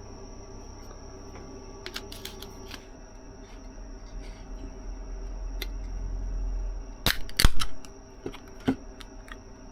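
Small clicks and handling noises, then about seven seconds in the sharp crack and brief hiss of a drink can's pull-tab being opened, followed by a couple of light knocks. Steady insect chirring runs underneath.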